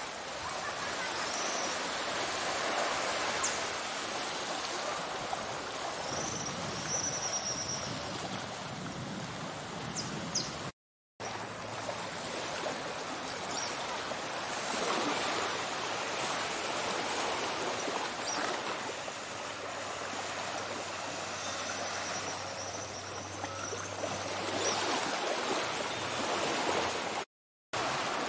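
Small waves washing onto a sandy beach, a steady hiss of surf, with a few short high bird calls over it. The sound drops out completely twice for a moment.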